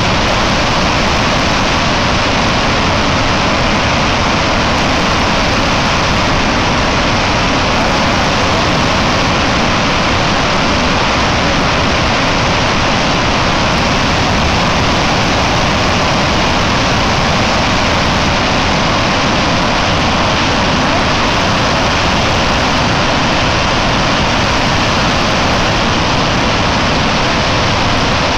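Loud, steady rushing of water released through a concrete dam's spillway chutes, the jets bursting into clouds of spray over the river below.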